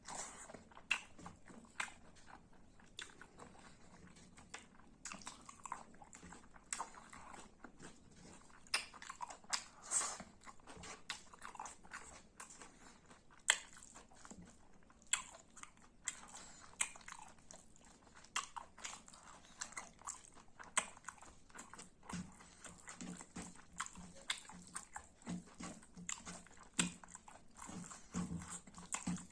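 Close-miked person chewing and biting food with their mouth, irregular wet smacks, clicks and crunches.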